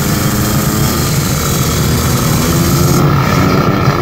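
Two-stroke Kawasaki Ninja drag bike engine running at steady, held revs at the start line, the pitch barely changing, ready for the launch.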